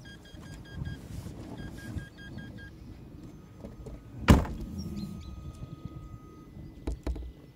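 Car's electronic warning chime beeping in two short runs, then a single loud thunk about four seconds in, over a low rumble from the car.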